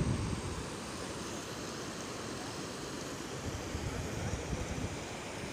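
Steady rush of muddy floodwater flowing across a field, with wind buffeting the microphone in low gusts, strongest right at the start and again around four seconds in.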